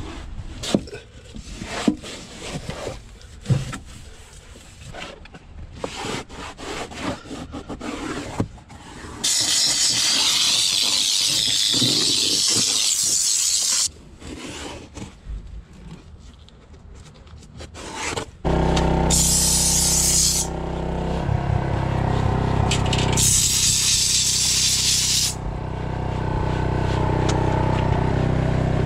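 Microfiber towel rubbing and scraping over the van's plastic floor trim and door sill, with scattered small knocks. About nine seconds in, a steam cleaner lets out a loud steady hiss of steam for a few seconds. From about two-thirds of the way through, the steam cleaner hums steadily, with two more bursts of hissing steam.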